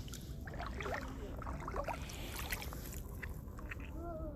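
Shallow seawater sloshing and trickling as a hand and feet move through it, with short irregular splashes over a low steady rumble.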